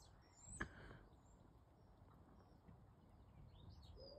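Near silence, with small birds chirping faintly and high-pitched twice, and a single sharp click about half a second in.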